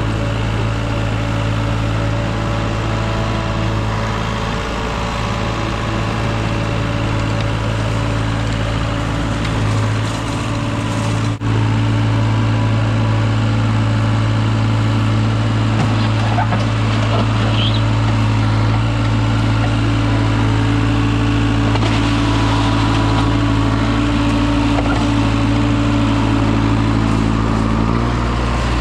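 Engine running steadily at a constant speed, a low even hum that holds the same pitch throughout.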